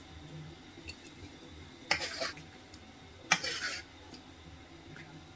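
Twice, about two and three and a half seconds in, a metal ladle clinks against the karahi and a ladleful of vegetable soup splashes into a ceramic bowl. A few faint ticks of utensils come in between.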